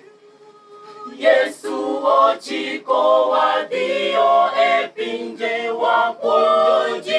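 A mixed choir of men and women singing a cappella, a hymn in Dholuo. A single voice holds a quiet note at first, then the full choir comes in loudly about a second in.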